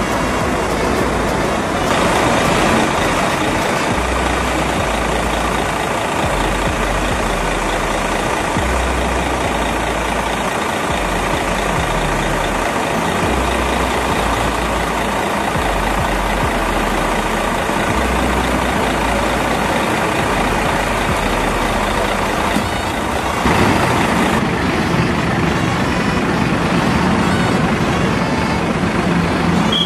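Large coach bus engines running and idling, a steady dense engine noise that grows louder about three quarters of the way through.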